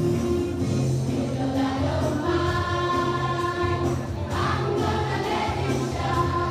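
A choir singing a song with musical accompaniment, holding long sung notes that change every second or so.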